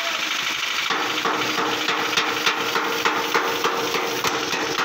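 Hammer blows on the sheet-metal front panel of an old Bedford truck: a regular knocking of about three strikes a second, starting about a second in.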